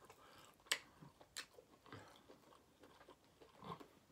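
Faint, close-miked eating sounds as a dry corn muffin is pulled apart by hand: scattered soft crackles and clicks, the sharpest about three-quarters of a second in.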